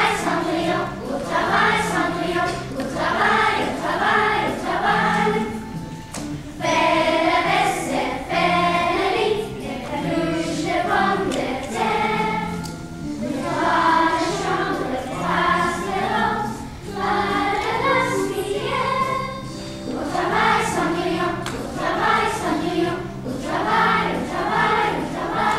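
A group of children singing a song together over an instrumental accompaniment with steady low bass notes, in phrases of a few seconds each.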